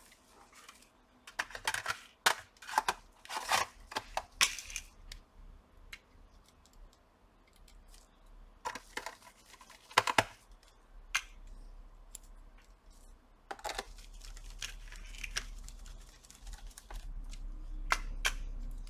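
Small clicks, taps and plastic rattles of a laptop's bottom cover and its small screws being handled and screwed back in by hand, in scattered bursts. A faint low hum comes in during the second half.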